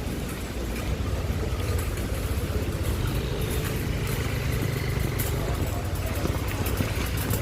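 Steady low rumble of road traffic, a motor vehicle's engine running close by, under the even hiss of rain and wet road.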